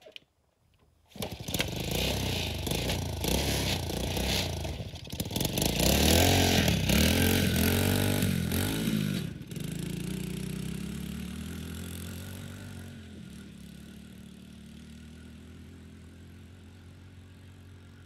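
Riding lawn mower powered by a 109 cc single-cylinder dirt bike engine, driving past. It comes in loud about a second in and revs up and down several times, then drops sharply about nine seconds in and fades steadily as it drives away.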